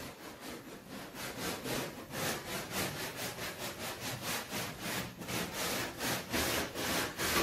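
Sandpaper rubbing back and forth on metal bodywork, about four strokes a second, getting louder about two seconds in.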